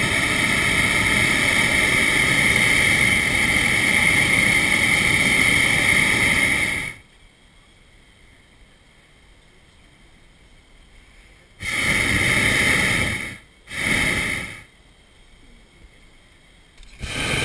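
Hot-air balloon's propane burner firing in blasts: one long burn of about seven seconds, then after a pause two short bursts close together, and another near the end. Each is a loud rushing noise with a steady high tone, cutting off sharply when the valve closes.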